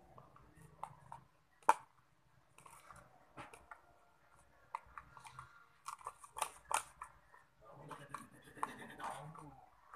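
Irregular small clicks and crackles from hands working slime-making materials, with one sharper click about two seconds in and denser bursts of crackling in the second half.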